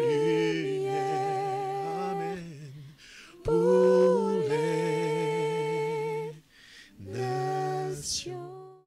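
A man humming a slow worship melody without words, holding long notes with vibrato, in three phrases with short breaks between them.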